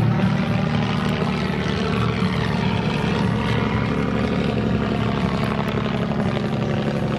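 Fokker D.VII biplane's piston engine and propeller running steadily in flight overhead, a continuous drone with a slight shift in pitch as it passes.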